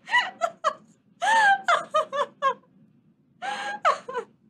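A person laughing out loud in wordless vocal outbursts: a few quick bursts, then a long drawn-out cry falling in pitch that breaks into rapid laughs, and another drawn-out cry near the end.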